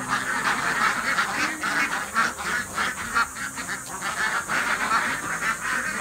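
A large flock of white domestic ducks quacking all together, a continuous din of many overlapping calls.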